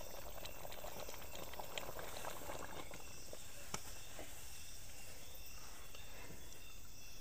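Quiet night ambience with insects, likely crickets, chirping steadily, and a few light clicks.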